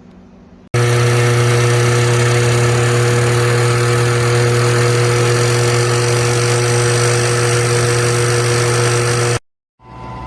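WEN benchtop drill press motor running steadily at speed: a loud, even hum with a hiss over it, cutting in abruptly just under a second in and cutting off suddenly near the end, then coming back quieter.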